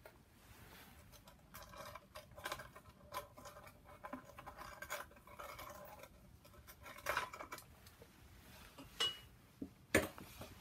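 Jacket fabric rubbing and scraping against the microphone, with light metallic clicks and clinks of tools, and two sharper clicks near the end.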